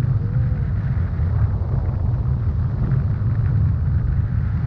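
Wind buffeting an action camera's microphone in paraglider flight: a steady, loud low rumble.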